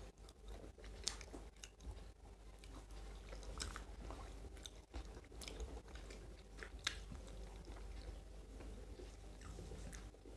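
Faint chewing and biting of people eating pieces of snakehead fish by hand, with scattered small crunchy clicks, the sharpest about a second in and near seven seconds.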